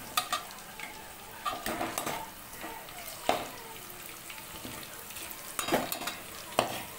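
Garlic, green chillies and ginger sizzling in hot oil in a metal pot, stirred with a perforated metal spatula that scrapes and clinks against the pan every second or so.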